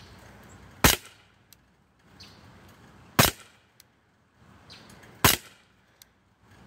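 Daisy Powerline 1911-style CO2 blowback BB pistol fired three times, single shots about two seconds apart, each a sharp pop.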